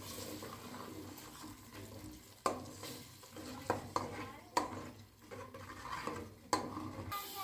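A long metal utensil stirring and mashing thick tomato paste into fried onions in a metal pot, scraping the bottom. It knocks sharply against the pot several times: once about two and a half seconds in, a few times around the middle, and once more near the end.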